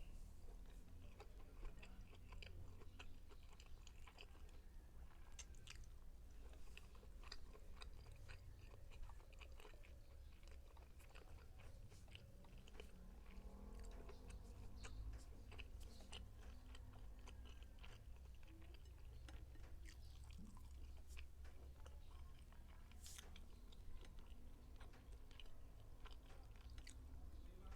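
Quiet close-up chewing of Spanish-style sardines, with many short wet clicks and smacks from the mouth throughout.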